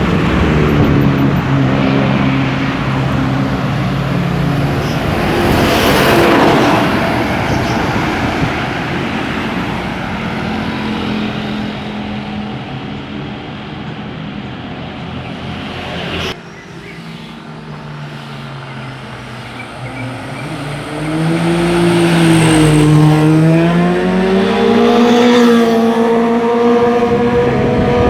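Buses and other road traffic passing at close range, engines running with the pitch shifting as they go by. The sound drops suddenly about two-thirds of the way through. Near the end a loud engine note rises and falls in pitch several times as a vehicle revs past.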